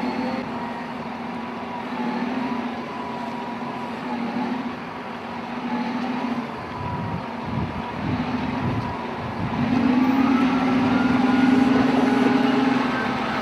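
Heavy machine's engine running steadily, then revving and getting louder about ten seconds in.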